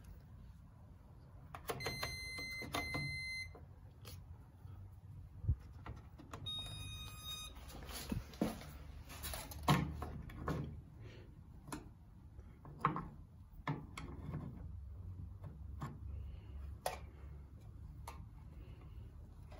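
Candy EVOT 10071D top-loading washing machine beeping: a run of short, high electronic beeps about two seconds in, then a second, differently pitched run of beeps around six to seven seconds in. After that come scattered knocks and clicks over a low hum.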